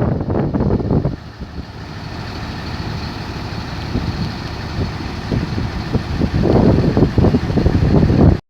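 Heavy bus engine running at low speed, a steady hum. A louder rush of noise covers it for about the first second and again for the last two seconds. The sound cuts off abruptly just before the end.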